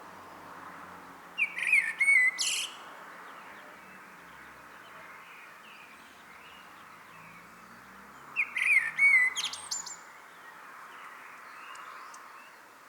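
Common blackbird singing two separate phrases about seven seconds apart. Each phrase is a low fluted warble that ends in a high, squeaky twitter, over a faint steady background hiss.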